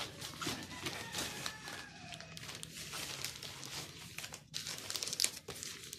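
Plastic courier mailer bag crinkling and rustling as it is handled, ahead of being torn open.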